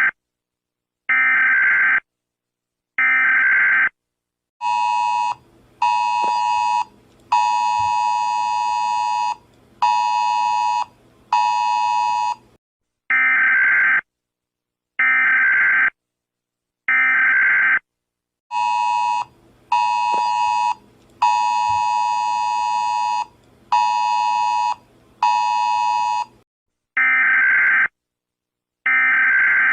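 Electronic alarm tones of a homemade Emergency Alert System warning: sets of three steady one-second beeps alternate with a lower, buzzier tone sounded short-short-long-short-short. The cycle runs twice.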